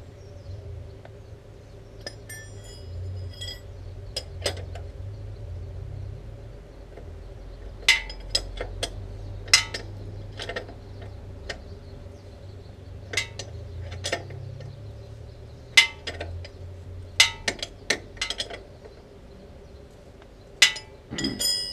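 Metal spanner clinking on a motorcycle's rear axle nut as it is tightened: sharp, irregular metallic clinks, some coming in quick little clusters.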